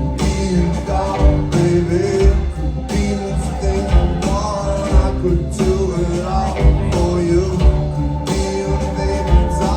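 Live rock band playing in a club, with a steady beat and pitched melodic lines moving over it.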